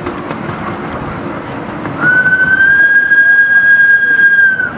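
Miniature steam locomotive's whistle blowing one long steady blast, starting about two seconds in and lasting nearly three seconds, over the running noise of the small train on its track.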